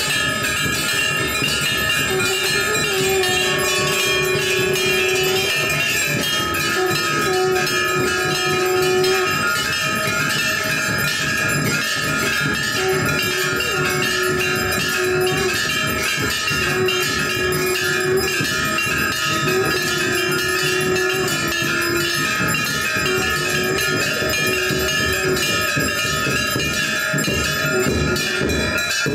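Several hanging temple bells rung by hand during aarti, a dense, continuous clanging with no pause.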